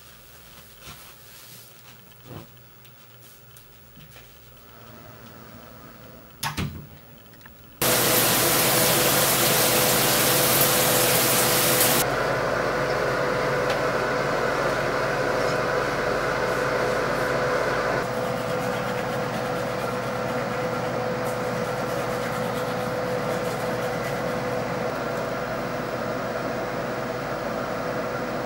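A few soft knocks, then about eight seconds in a loud, steady hiss with a constant hum switches on abruptly, like a fan or running water. It drops down in level twice and then runs on evenly.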